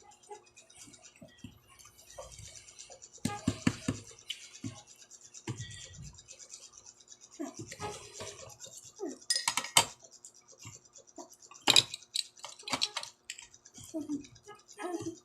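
Close-miked eating sounds: chewing food and cutlery clinking against a plate, in irregular bursts with a few sharper clinks.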